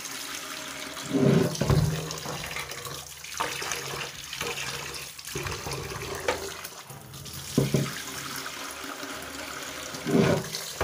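Tap water running steadily into a steel pot of rice and splashing into a stainless steel sink as the rice is washed. There are three louder bursts, about a second in, about two-thirds through and near the end, as the pot is tipped to pour off the cloudy rinse water.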